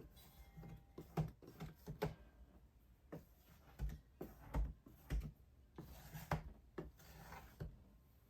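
Squeegee stroked repeatedly across window film on glass, pushing soapy water and bubbles out from under the film: a series of short, irregular rubbing swipes, with a few soft thumps about halfway through.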